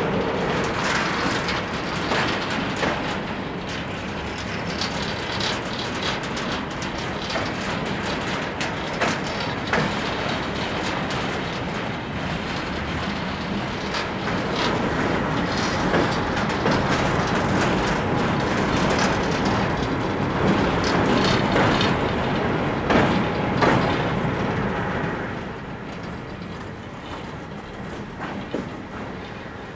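Passenger train running along the track, heard from on board: a steady rolling rumble with irregular clicks of the wheels over rail joints. It grows somewhat quieter near the end.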